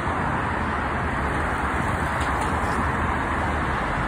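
Steady traffic noise from cars driving along a multi-lane highway: an even, continuous rush of tyres and engines with no single vehicle standing out.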